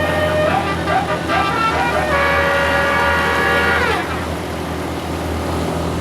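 Bus telolet basuri musical air horn playing a quick run of notes, then a held chord that slides down in pitch and cuts off about four seconds in. The bus engine runs underneath.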